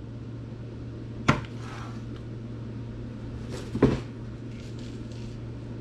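Two sharp knocks about two and a half seconds apart as packaged food items are set down on a table, with faint rustling of the packets after each, over a steady low hum.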